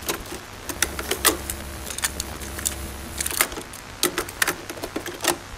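Irregular sharp clicks and clatters, about a dozen, over a steady hiss. A low hum under the hiss stops a little past halfway.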